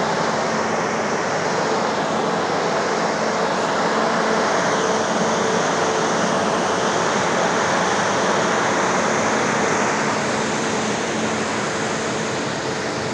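Gas-fired tower corn dryer running: its large burner fans blow a steady rush of air over a steady low hum.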